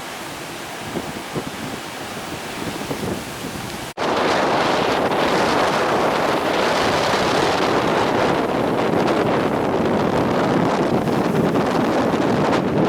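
Storm surf on the sea with strong wind buffeting the microphone. About four seconds in, the sound cuts and comes back louder, the wind rush now dominating.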